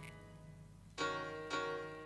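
Background instrumental music: soft keyboard chords struck about a second in and again half a second later, each slowly fading.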